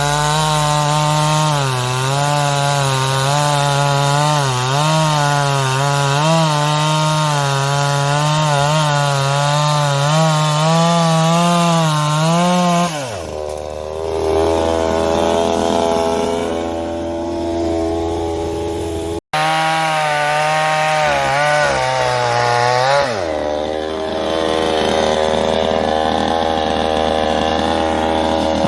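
Gasoline engine chainsaw running at high revs, its pitch wavering as it cuts through wood. About 13 s in it drops suddenly to idle. After a brief break it runs at high revs again, then drops back to idle about 23 s in.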